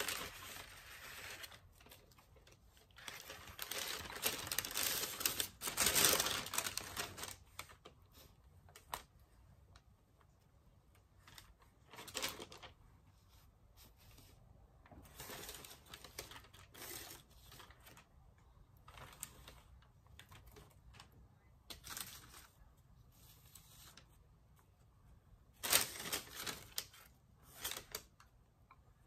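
Hands handling small hard candies and gingerbread pieces on a tabletop: irregular clicks and taps, with a few longer stretches of rustling a second or two long, the loudest around a quarter of the way in and again near the end.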